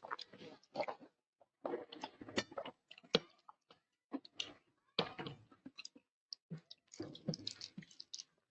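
A person eating close to the microphone: chewing and mouth sounds in irregular bursts, with sharp clicks scattered among them.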